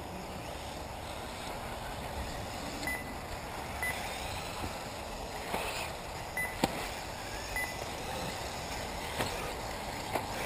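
1/8-scale electric RC off-road buggies running on the track, a steady wash of motor and tyre noise. Four short high beeps sound at irregular intervals, and a sharp knock comes about six and a half seconds in.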